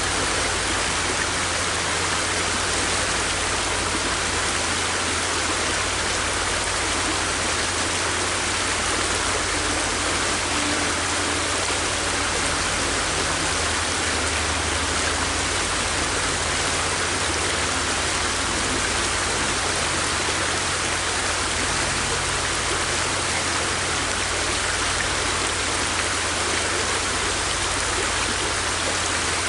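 River water rushing and splashing over rocks in a steady, unbroken wash.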